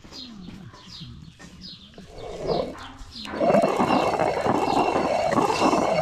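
Stone hand quern grinding wheat: the upper millstone, turned by its wooden handle, sets up a loud, continuous rough grinding of stone on stone and grain starting about three seconds in. Before that, small birds chirp in short repeated calls.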